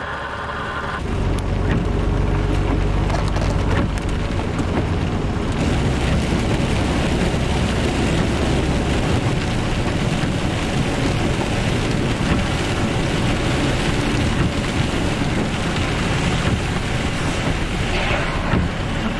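Steady rush of rain and wet-road tyre noise heard from inside a moving truck's cab, with a low engine drone that is strongest in the first half.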